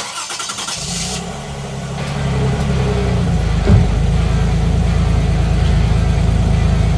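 Toyota Alphard being started: about a second of harsh, high-pitched starter grinding, the screech of a failing starter, before the engine catches. The engine then runs and gets louder over the next couple of seconds, with a single knock partway through.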